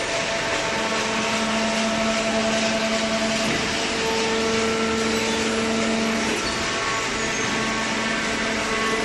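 Horizontal hydraulic paper baler running: a steady machine noise with a hum and a whine that grow stronger for a few seconds in the middle, then ease back.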